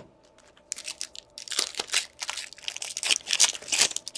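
A foil trading-card pack wrapper being torn open and crinkled by hand, starting about a second in as a fast run of irregular crackles.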